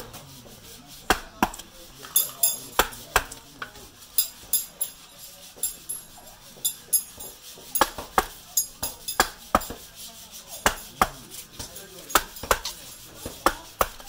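Wooden mallet striking a carving chisel driven into a wood block, sharp hollow wooden knocks at an irregular pace of about two a second, some in quick pairs, as a bird finial is rough-shaped.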